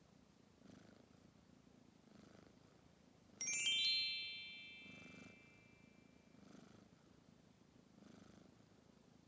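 A sleeping kitten purring softly, swelling with each breath about every second and a half. About three and a half seconds in, a bright chiming ding of many high tones rings out and fades over about two seconds; it is the loudest sound.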